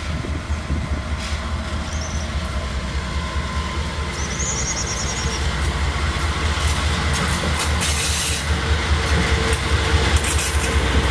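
A freight train hauled by several GE Dash 9 diesel-electric locomotives approaching and passing close by: a heavy, steady low engine rumble that grows louder, with wheel clicks over the rail joints in the second half.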